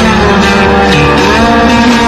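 Loud music with guitar.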